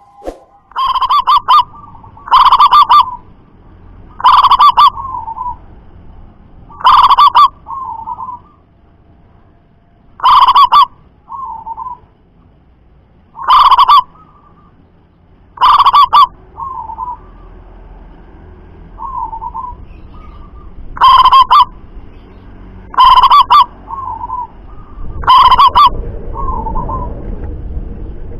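Local zebra dove (perkutut) cooing loudly, about ten very loud calls spaced every two to three seconds, most followed by a softer short coo. This is the strong, far-carrying song kept as a master call to train other perkutut to sing.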